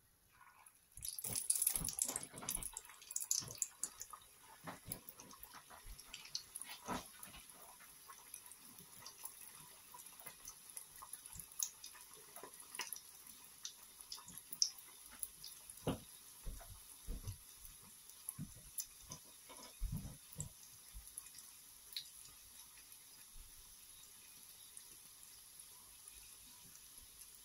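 Battered vegetable pithas slid into hot oil in a karahi set off a sudden burst of loud sizzling and crackling about a second in. The oil then keeps up a steady sizzle with scattered pops as they deep-fry.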